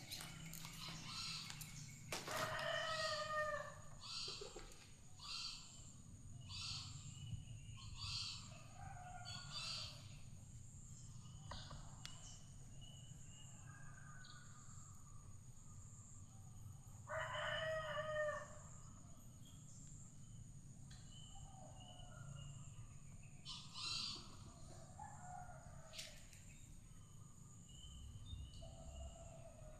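A rooster crowing twice, each crow lasting a second or two, about two seconds in and just past the middle. Shorter bird calls and chirps come between the crows, over a steady high-pitched whine.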